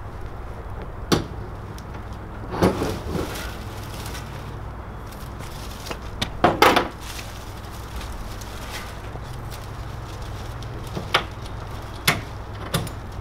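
Metal conduit frame of a grass-thatched scissor duck blind knocking and rattling against a jon boat as it is folded down. There is a knock about a second in, a cluster near three seconds, the loudest knocks around six and a half seconds, and a few more near the end.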